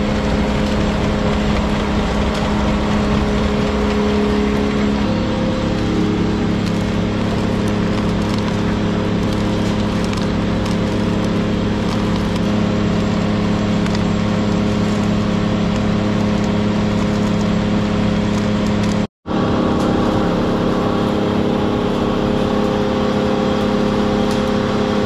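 Ore-processing mill machinery running: a steady motor hum with a dense clatter of crushed ore as the conveyor belt carries it and drops it off the end. The sound changes abruptly about five seconds in and cuts out for a moment near the end.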